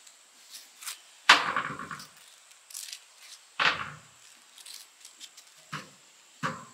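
Corn cobs and a wooden paddle knocking and clattering in a large pot of boiling water, in four sudden strokes. The first, about a second in, is the loudest.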